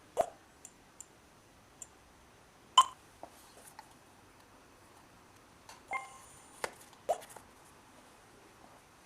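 Buttons on a wireless alarm system being pressed and handled: a dozen or so irregular plastic clicks and short electronic beeps, the loudest a sharp click about three seconds in.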